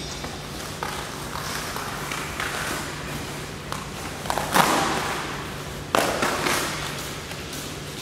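Cardboard packaging rustling and scraping as it is pulled off a frame machine's parts, with light knocks. There are two louder rustling scrapes, about four and a half and six seconds in, over a steady low hum.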